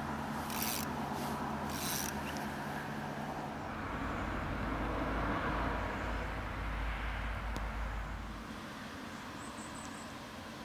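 Fly line rasping twice in quick succession, about half a second and two seconds in, as it is worked on a spey rod. Under it runs a steady hiss, with a low wind rumble on the microphone for a few seconds in the middle.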